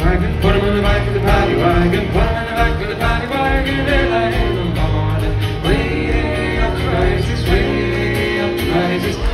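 Acoustic guitar and fiddle played live as a duo, with singing over them.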